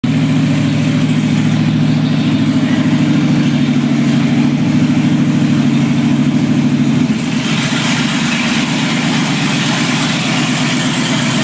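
A vehicle engine running steadily; about seven seconds in its note changes, the low hum thinning and a higher hiss growing.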